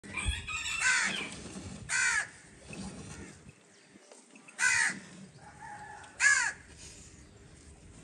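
Crows cawing: a few short caws a second or two apart, over faint background noise.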